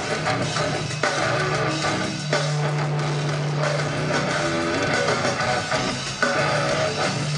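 Metalcore band playing live: distorted electric guitars, bass and drums at full volume, with long held low notes.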